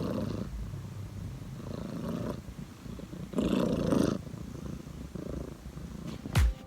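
Gray kitten snoring in its sleep, a soft snore on each breath roughly every two seconds, the loudest about halfway through. A loud beat of music cuts in just before the end.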